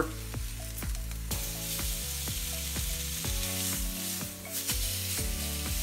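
Venison steak sizzling on a hot cast iron grill pan. The sizzle grows louder about a second in, as the steak is flipped onto its unseared side.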